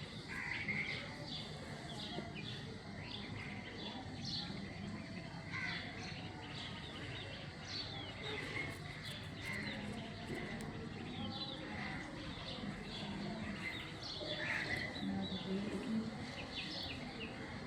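Small birds chirping in short, repeated calls, with a low steady hum beneath.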